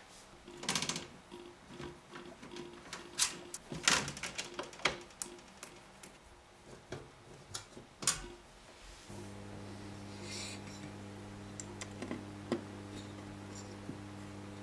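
Clicks, taps and knocks from the metal chassis of a Marantz PM350 amplifier and its parts being handled, several of them loud. About nine seconds in a steady low electrical hum starts, with a few light clicks over it.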